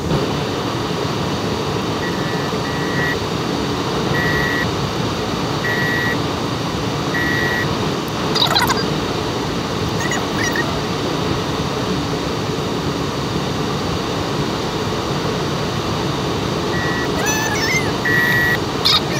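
Steady road and engine noise inside a moving car's cabin. Short, high beeps repeat about every second and a half for a few seconds, then again near the end.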